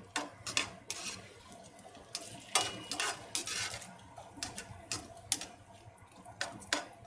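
Diced guanciale frying in a pan, sizzling with irregular sharp pops and crackles of spattering fat as it renders.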